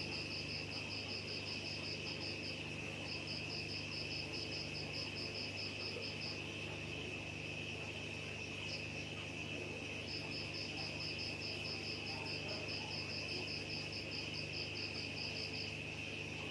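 Crickets chirping: one keeps up a steady high trill while another chirps in fast pulsed runs that stop and start again, over a low steady hum.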